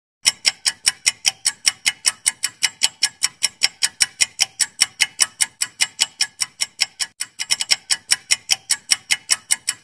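Clock-ticking sound effect for a quiz timer: sharp, even ticks about four or five a second, with a brief break about seven seconds in, after which they come a little quicker and less evenly.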